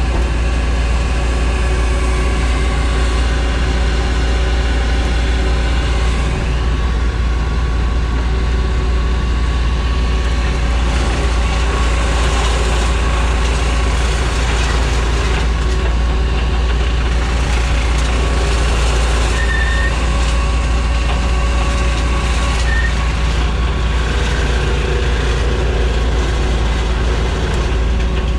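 Heavy engine running at a steady speed: a loud, deep, unchanging rumble with no load changes or knocks.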